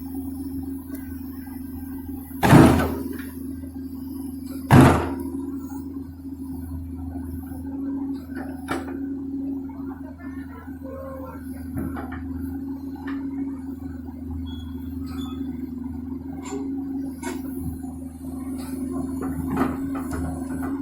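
Komatsu PC200 hydraulic excavator's diesel engine running steadily at a constant pitch, with two loud knocks a couple of seconds apart near the start and lighter knocks and clanks from the working machine after.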